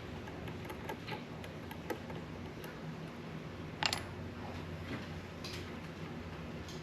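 Small motor of a rod-wrapping machine turning slowly with a steady low hum, and light irregular ticking as the rod and thread turn; one sharper click about four seconds in.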